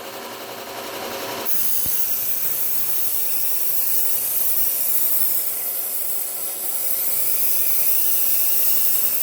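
Chef's knife blade being ground on a slow-speed belt sander with a 120-grit Cubitron belt. A quieter hiss for about the first second and a half, then a steady, high grinding hiss as the steel is pressed to the belt, which drops off just after the end.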